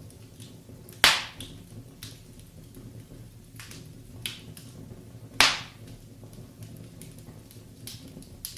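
Wood fire burning in a fireplace, with a steady low rumble and scattered crackles, and two loud sharp pops about four seconds apart.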